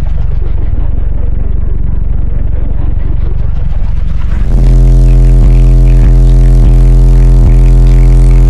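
A wall of car subwoofers playing very loud bass music. For the first four seconds or so the high end falls away and the bass churns unevenly. Then a steady, buzzing low bass note comes back, broken by a regular beat.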